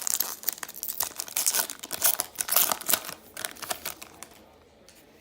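Trading-card pack wrapper being torn open and crinkled by hand: a dense run of crinkling and tearing that stops about four seconds in.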